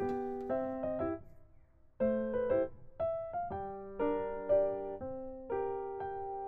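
Background piano music: single struck notes and chords forming a gentle melody, with a brief pause about a second in before it resumes.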